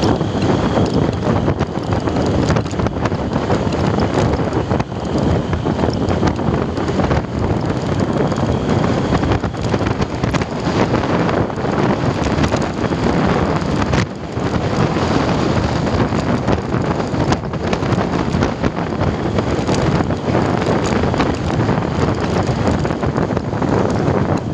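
Steady wind rushing over the microphone of a moving motorcycle, with the motorcycle's running noise underneath.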